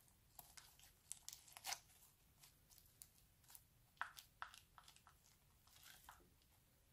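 Crunchy slime packed with foam beads and flakes, pulled apart and squeezed by hand, giving off faint, scattered crackles and pops.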